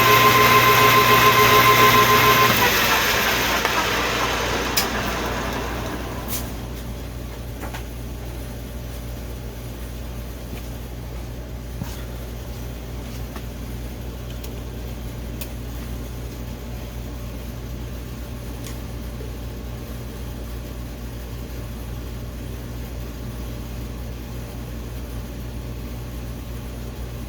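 Metal lathe running with a steady whine, switched off about two and a half seconds in and spinning down over the next few seconds. After that a low steady hum remains, with a few faint clicks.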